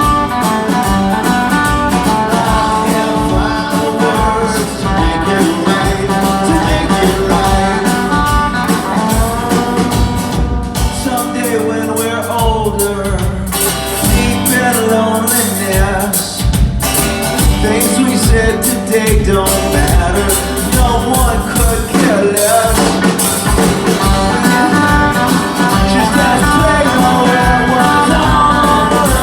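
Rock band playing live with guitars, drums and a sung vocal, in an alt-country rock style.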